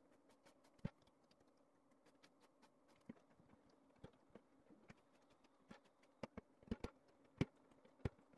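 Scattered soft taps and knocks of hands kneading, pressing and rolling baklava dough on a wooden tabletop. The taps come more often and louder near the end, over a faint steady hum.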